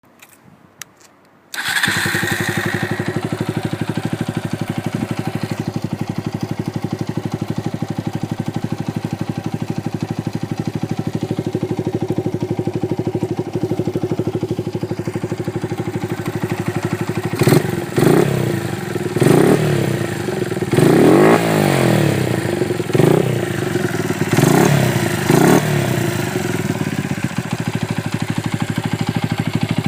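Motorcycle engine of a Honda FTR223 converted to 125 cc catching about a second and a half in and settling into a steady idle. About halfway through the throttle is blipped about six times, one longer rev rising and falling, before it drops back to idle. It runs with no abnormal engine noise.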